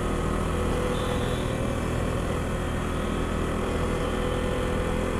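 Yamaha R15 V4's 155 cc single-cylinder engine running at a steady speed while the bike rides along, with wind noise.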